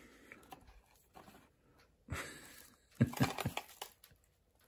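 Small objects being handled: a soft rustle about two seconds in, then a quick run of light clicks and rustles around three seconds in.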